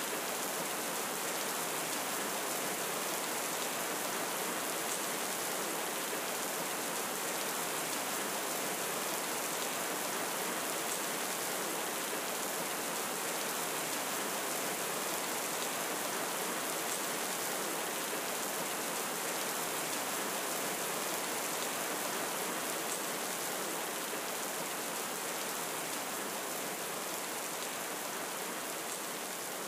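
Steady rain, an even hiss without thunder, easing slightly near the end.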